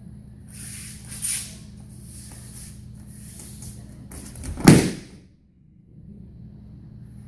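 A judo throw landing on tatami mats: one loud thud of the bodies hitting the mat, with the breakfall slap, about four and a half seconds in. Before it, judogi jackets and bare feet make a soft scuffle on the mat.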